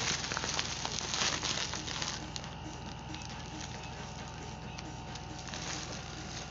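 Plastic packaging crinkling and rustling as it is handled, loudest in the first two seconds with a short burst again near the end, over a steady low hum.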